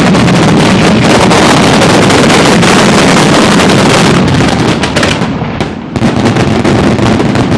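A ground firecracker chain (batteria) on stakes is going off at close range: a dense, unbroken crackle of rapid bangs. It thins briefly about six seconds in, then goes dense again.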